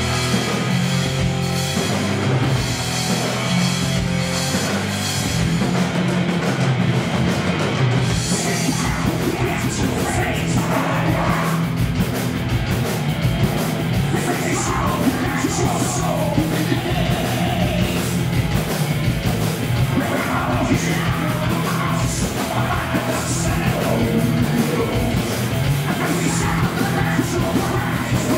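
Live rock band playing electric guitars, bass and drums, amplified on stage. The lead vocals come in about eight seconds in and carry on over the band.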